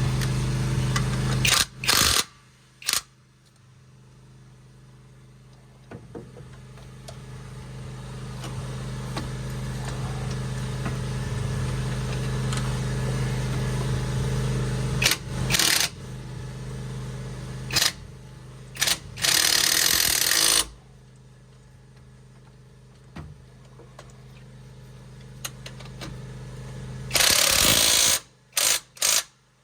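A power impact wrench tightening bolts on the handbrake cable assembly, in several short loud bursts of a second or so. A steady hum runs in the first two seconds.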